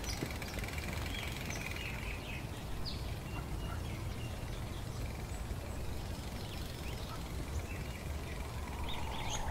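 Outdoor ambience: wind rumbling on the microphone, with scattered short bird chirps.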